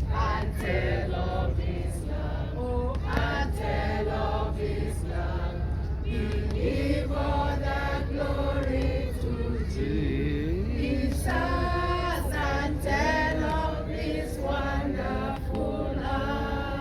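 A group of people singing a hymn together, with a steady low rumble underneath.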